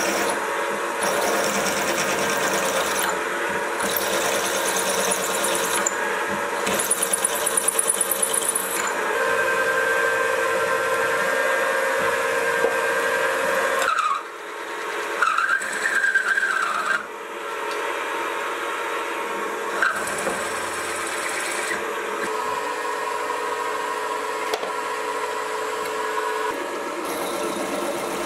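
Mini vertical mill drilling holes in a block of aluminium: the motor and spindle run steadily as the bit cuts, the sound changing abruptly several times, with a brief wavering squeal about halfway through.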